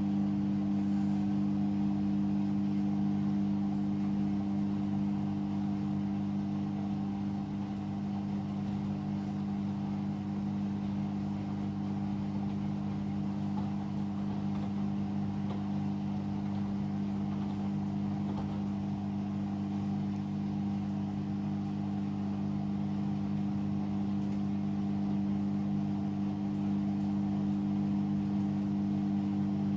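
Hoover Sudslock washing machine on its final spin, the drum and motor running at a steady full speed with a constant-pitched hum and a rushing whir.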